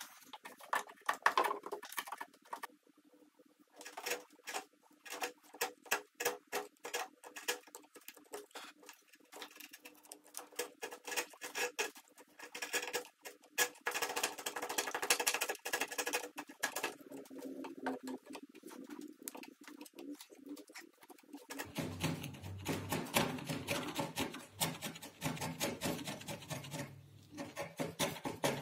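Steel hand tool scraping and paring an oak joint in many short strokes, in uneven runs, with a low steady hum coming in for the last few seconds.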